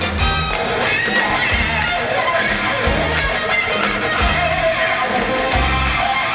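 Loud music with guitar and a recurring bass beat.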